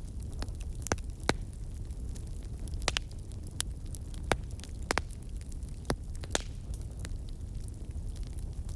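Wood campfire burning: a steady low rumble with sharp crackles and pops at irregular intervals, about a dozen of them, the loudest about a second in and again near the middle.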